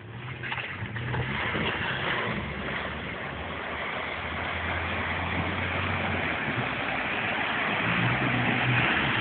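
An old Jeep's engine running as it drives through a muddy, water-filled rut, with water splashing, growing louder as it comes closer.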